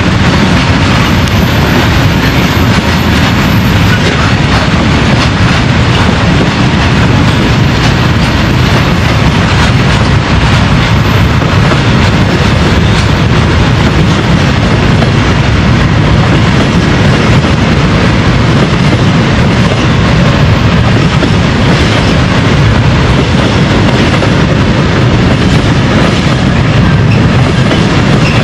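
Freight train of rail tank wagons rolling past: a steady, loud noise of wagons and wheels on the track.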